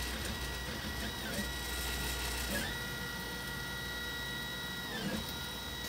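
Velleman K8200 3D printer's stepper motors running during a print: a steady high whine that dips briefly in pitch about three times as the moves change.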